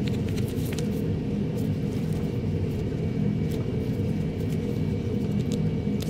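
A steady low rumble from background machinery, with faint light clicks of small carburetor parts being handled.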